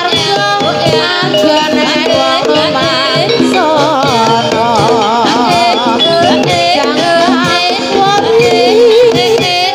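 Live ebeg (Javanese hobby-horse dance) accompaniment music: a singer with a heavy, wavering vibrato over steady drumming and instruments holding sustained notes.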